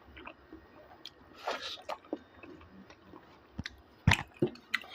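Close-up chewing and biting of a person eating pork and bamboo shoot: wet, squishy mouth sounds with scattered small clicks, and a sharp click about four seconds in.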